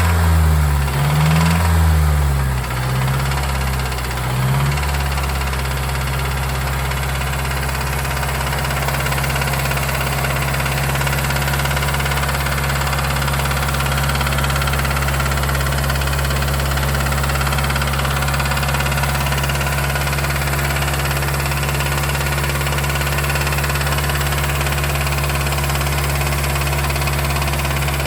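Mazdaspeed3's turbocharged 2.3-litre four-cylinder engine blipped up and down twice in the first few seconds, then idling steadily, with a knock that the owner takes for rod knock.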